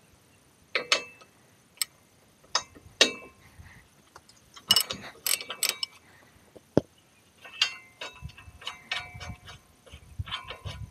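Half-inch-drive socket ratchet with an 18mm socket working the tractor's front bracket nuts loose: irregular sharp metallic clicks and clinks, with quicker runs of ratcheting clicks in the second half.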